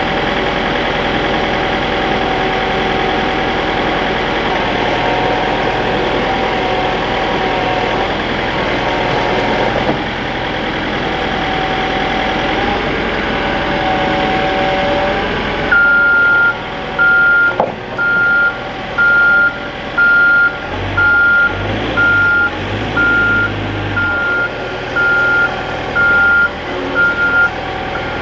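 Skid steer engine running under load as it moves trusses. From about halfway through, its backup alarm beeps steadily about once a second while it reverses.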